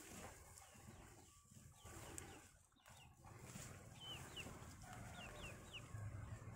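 Faint bird chirping: a quick run of short, thin calls past the middle, over a low background hum.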